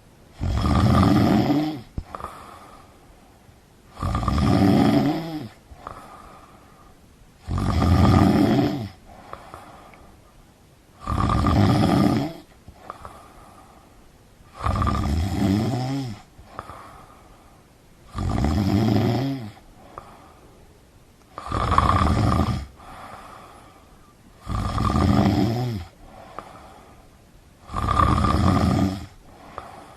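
A sleeper snoring loudly and rhythmically. There are nine snores, about one every three and a half seconds, each lasting about a second and a half, with a fainter breath between them.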